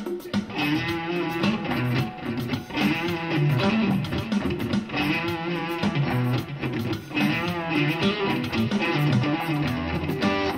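Electric guitar played through an amplifier, a melodic line of wavering, bent notes over lower notes.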